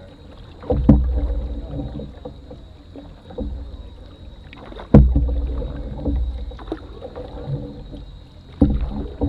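Canoe paddling: three sharp knocks on the canoe hull, about a second in, midway and near the end. Each is followed by a deep hollow ringing of the hull that fades over a second or two, with softer paddle and water sounds between.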